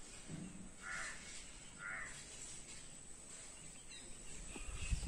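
A bird calling twice outdoors, two short calls about a second apart, over a faint steady background; a low thump near the end.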